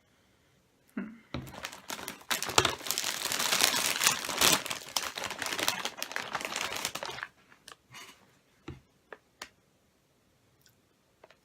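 Plastic snack bag of tortilla chips crinkling and rustling as it is handled for about six seconds, followed by a few light scattered clicks.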